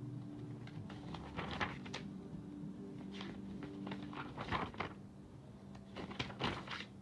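Handling noises: four short bouts of rustling and knocking as paper is got out, over a steady low hum.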